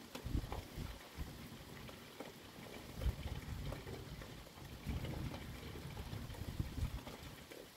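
Thunderstorm ambience: a low, uneven rumble that swells and fades, with a few scattered faint ticks.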